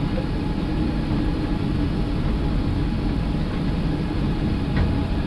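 Airbus A380 on its takeoff roll at takeoff thrust, heard from inside the cockpit: a steady rumble of its four engines and of the wheels on the runway, with a faint steady hum, as the airliner accelerates.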